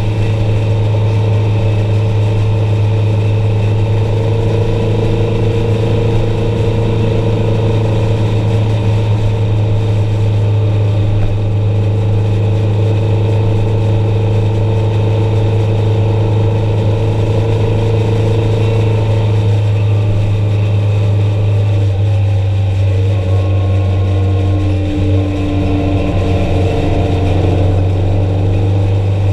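A vehicle's engine running steadily while driving on the road, its pitch dropping slightly about three-quarters of the way through.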